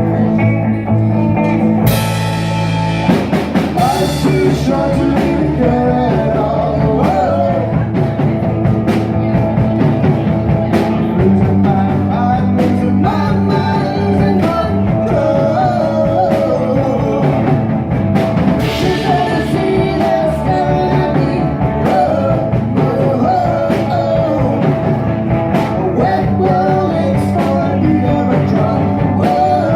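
Live rock band playing electric guitar, bass and drum kit. The drums come in with a cymbal crash about two seconds in, and a lead voice sings over the band after that.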